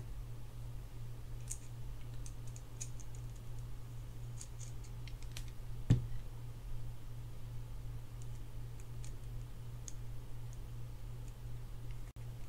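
Scattered light clicks and taps of small hand tools against a small metal fishing-reel part as it is handled and screwed together, with one sharper knock about six seconds in, over a steady low hum.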